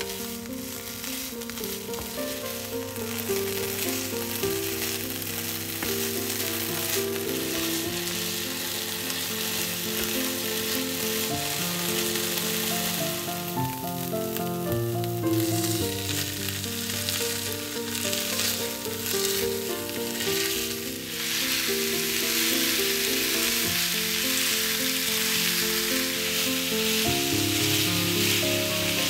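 Chopped bacon sizzling in a non-stick frying pan, stirred now and then with a wooden spatula. About halfway through, minced meat goes into the pan, and from about two-thirds of the way in the sizzling is louder. Soft background music plays underneath.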